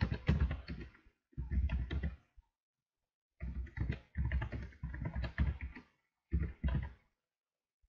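Typing on a computer keyboard: quick runs of keystrokes broken by short pauses, with one silent gap of about a second a third of the way in.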